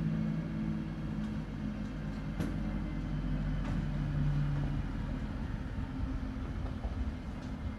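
Rear-loader garbage truck's engine and hydraulics running through a packer cycle, sweeping the hopper's load into the body, with a steady low drone that drops away about five seconds in. A single click about two and a half seconds in.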